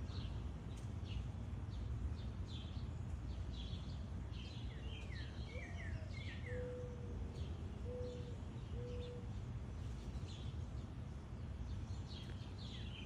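Backyard songbirds chirping and calling in short, high notes, many of them falling in pitch, over a steady low rumble. Midway there are four low, level notes about a second apart.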